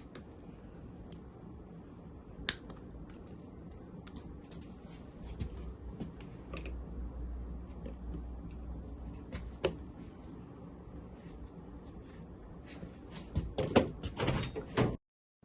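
Sharp metal clicks and snips of side cutters and hand tools as the safety tie wire on a motorcycle engine's oil filler is cut and the filler plug undone, with a low rumble in the middle. A quick run of clicks and knocks comes near the end.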